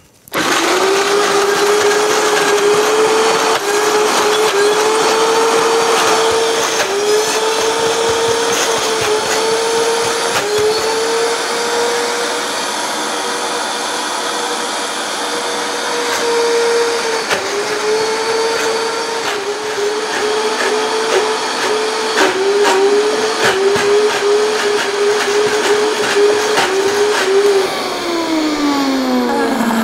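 Vitamix blender motor running at high speed through a thick, low-water mix of Irish moss gel and nuts. Its pitch dips again and again as the tamper plunges the mix and the load changes. Near the end the motor winds down with a falling pitch.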